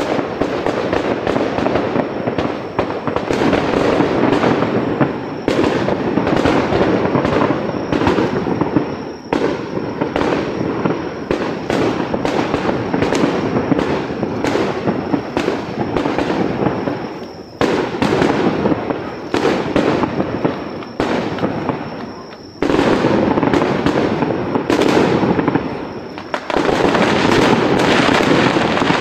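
Aerial fireworks going off: many sharp bangs in quick succession over a dense, continuous crackle of bursts, easing briefly a few times.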